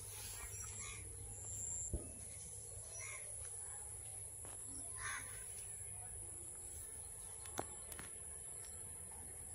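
Rural outdoor ambience: a steady high-pitched insect drone, with a few short bird calls and two sharp clicks.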